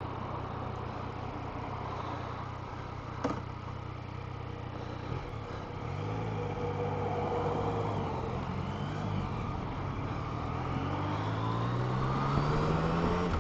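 Motorcycle engine running on the road with wind rushing past. About six seconds in its pitch rises and falls a few times, then it climbs steadily near the end as the bike accelerates. One sharp click comes about three seconds in.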